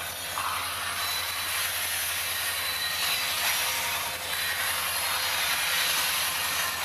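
Freight train cars rolling past: a steady rush of steel wheels on rail.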